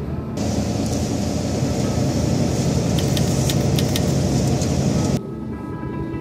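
Inside a moving bus: engine rumble and road noise, with a few sharp clicks or rattles in the middle. It cuts off suddenly about five seconds in, leaving background music.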